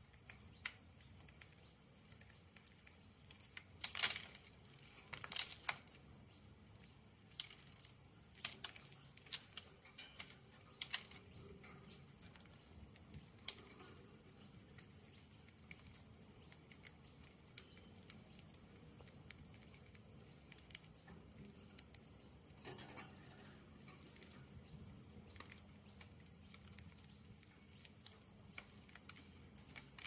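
Budgies pecking and cracking millet seed: faint, irregular small clicks and crunches, with a louder cluster about four seconds in and another around five seconds.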